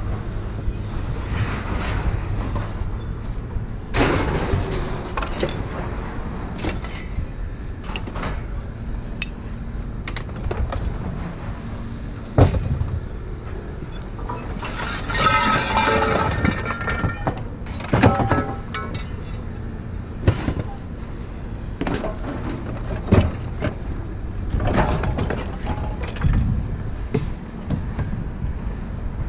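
Scrap metal being thrown and dropped onto a pile: irregular clanks, knocks and clatters, with a longer ringing clatter of metal about halfway through, over a low steady hum.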